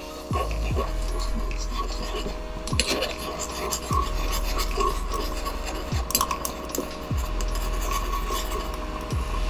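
Small metal spoon stirring and scraping sauce in a tiny iron wok, with irregular clinks of the spoon against the pan. A few low thuds come now and then.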